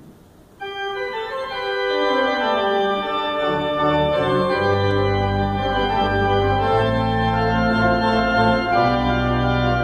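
Church pipe organ playing an improvised passage in German Baroque style. A full, bright chord sounds under a second in, and deep pedal bass notes join about four seconds in.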